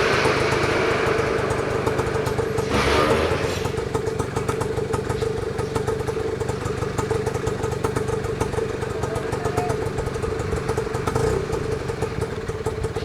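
A vehicle engine idling steadily with a rapid low pulsing and a steady hum, with a brief louder rush of noise about three seconds in.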